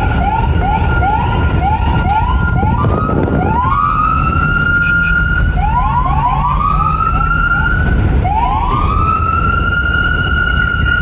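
Police siren cycling between a fast yelp of short rising chirps, about three a second, and slower wails that climb and hold a high note. The yelp runs for the first few seconds and briefly again midway. A heavy low rumble runs underneath.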